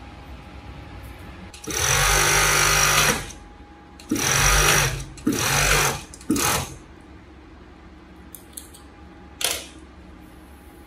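Industrial four-thread overlock sewing machine (serger) stitching fabric in bursts: one run of about one and a half seconds, two shorter runs a little later, then a brief one. One short knock about nine and a half seconds in.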